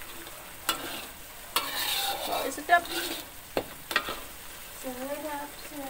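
Metal spatula scraping and clinking against a metal wok as a chili spice paste for balado is stirred, the paste sizzling as it is sautéed until fragrant. A few sharp scrapes stand out among the steady frying.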